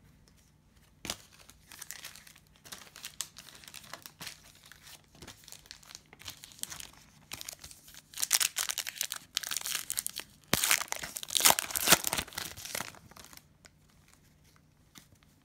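Cellophane wrapper of a trading-card cello pack crinkling and being torn open by hand, in irregular crackles that grow loudest from about eight to thirteen seconds in.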